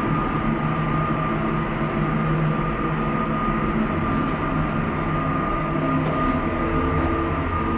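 Schindler hydraulic elevator car running between floors: a steady low rumble and hum with a constant high-pitched whine.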